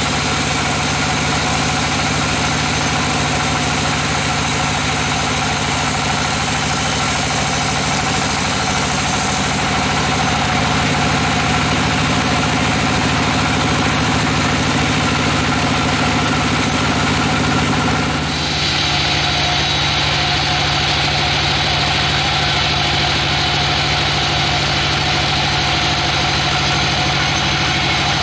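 Sawmill bandsaw machinery running steadily with an engine-like drone and a hiss. About eighteen seconds in, the sound shifts abruptly and a higher hiss sets in.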